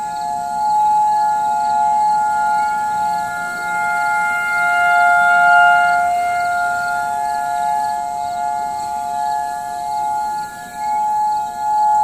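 Federal Signal outdoor warning sirens sounding a steady tone during a tornado siren test. Several sirens at slightly different pitches overlap, holding their pitch while swelling and fading in loudness.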